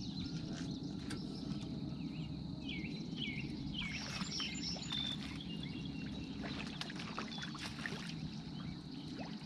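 Outdoor lakeside ambience: birds chirping a few times around the middle, with scattered light clicks and knocks of fishing rods being handled in a boat, over a steady low hum.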